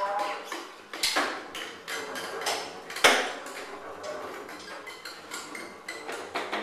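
Free-improvised acoustic music reduced to sparse clicks, taps and plucks from drums, mandolin and double bass, with two sharper strikes about a second in and about three seconds in.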